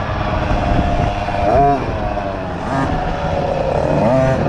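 Small 50cc youth dirt bike engine heard from the rider's own bike, revving up and down in several short throttle bursts as it slows into a tight section, over low rumble and wind.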